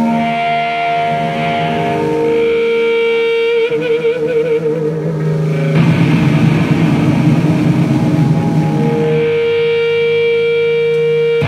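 Live hard rock band: a distorted electric guitar, run through effects, sustains long notes, one wavering in a fast vibrato about four seconds in. About six seconds in the sound thickens into a louder, denser full-band passage with heavy low end.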